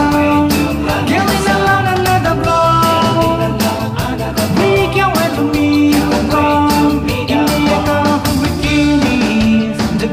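Background music: a song with a steady drum beat and long held melody notes.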